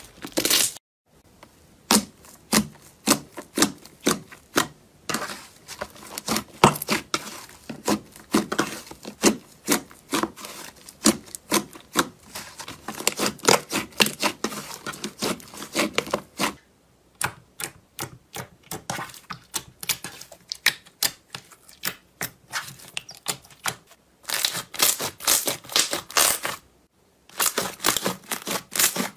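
Hands squeezing, kneading and pressing slime, which gives off quick runs of sticky clicks and pops. The takes are separated by a few brief silent breaks.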